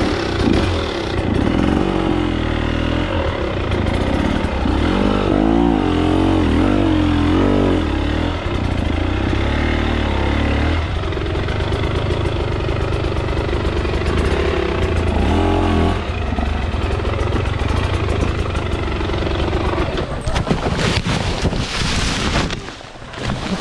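Two-stroke dirt bike engine running under load while riding off-road. The revs rise and fall over and over with the throttle in the first half, hold steadier for a few seconds in the middle, then vary again near the end.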